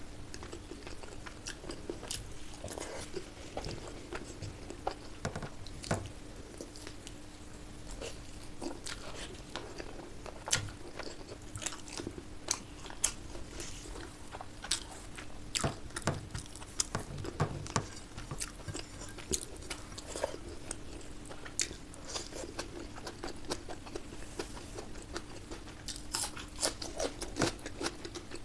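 Close-miked eating sounds of curry and rice: steady chewing with many small sharp wet clicks and smacks, over a faint steady hum.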